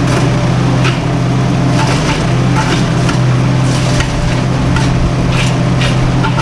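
Cobra wood chipper running under load, its engine droning steadily while branches are fed through and shredded, giving irregular crunches and splintering cracks every half second or so.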